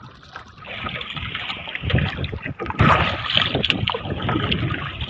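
Wind buffeting the microphone over choppy water lapping and splashing against a small outrigger boat, growing louder about a second in.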